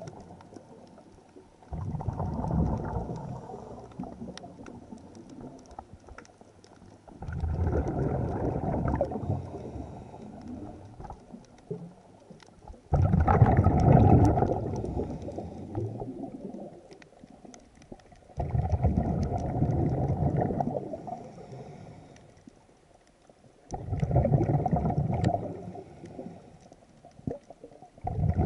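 Scuba diver's exhaled breath bubbling out of the regulator underwater, a bubbly rush of two to three seconds that comes back about every five and a half seconds, with quiet gaps for the inhale between.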